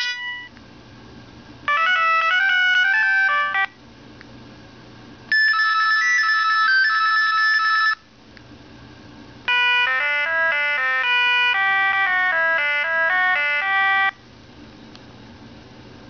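Sony Ericsson T290a phone's speaker playing polyphonic ringtone previews: three short electronic melodies one after another, each a few seconds long, with pauses of faint hiss between them.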